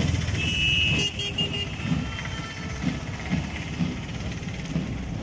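Street noise from a slow-moving procession: vehicle engines running with a steady low rumble. A brief high steady tone lasts about a second near the start.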